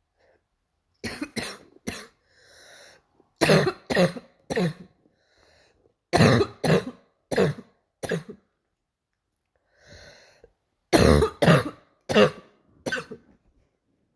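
A girl's barking cough, in four bouts of three or four coughs each, with an audible breath drawn in between some bouts.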